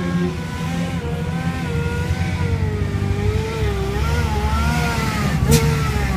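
Car engine revving at the start line, its pitch rising and falling, over a low engine rumble. A single sharp crack sounds near the end.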